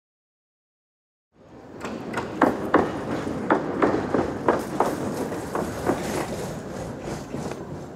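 A rattling clatter with irregular sharp knocks, about two or three a second, fading in after a moment of silence.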